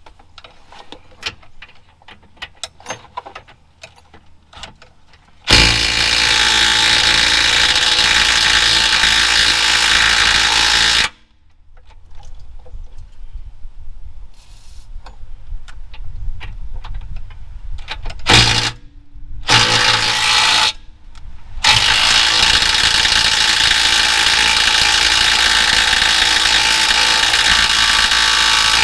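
Light clicks and knocks of hand tools, then a power tool driving the differential bolts, run in long steady bursts: one of about five seconds, two brief ones later, and a longer run near the end.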